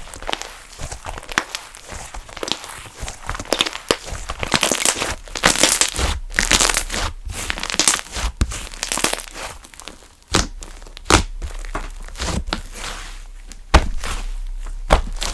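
Funfetti slime being squished and stretched by hand, giving dense sticky crackling and crinkling. The crackling is busiest in the middle, and a few sharp pops follow in the second half.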